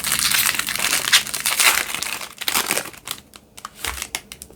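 A trading-card pack wrapper being torn open and crinkled, with loud crackling for about two and a half seconds, then a few lighter rustles and clicks.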